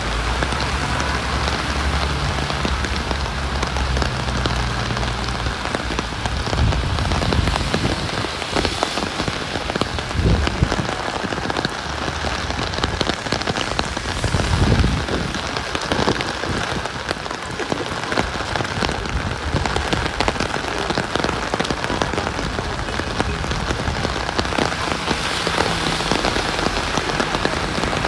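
Heavy rain falling, a dense steady hiss of drops, with a few brief low rumbles partway through.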